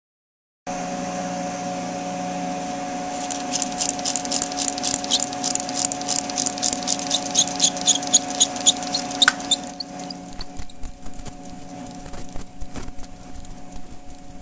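Ultrasonically vibrated drill bit humming with several steady tones, while water drops landing on it sizzle into mist in short high hisses, about four a second. The hissing stops about two-thirds of the way through, leaving the hum and faint clicks.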